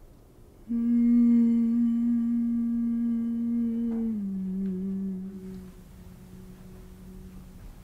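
A woman humming one long held note that starts just under a second in, steps down slightly in pitch about four seconds in, and carries on more softly to the end.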